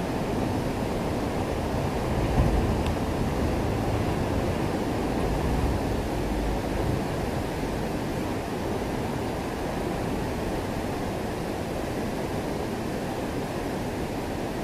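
Steady rushing of water at a river intake weir, a dense low noise without pitch, with a couple of brief low swells about two and a half and five and a half seconds in.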